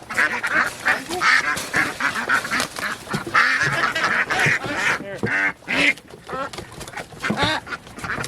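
A flock of domestic ducks quacking, with many loud calls overlapping one after another. The loud quack is the call of the hens, since drakes don't quack.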